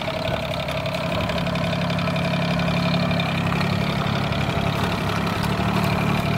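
Solis 26 compact tractor's three-cylinder Mitsubishi diesel running steadily at low revs as the tractor is driven slowly.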